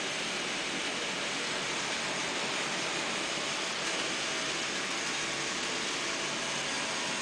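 N scale model diesel freight train running along the layout's track, heard as a steady even hiss with a few faint steady tones.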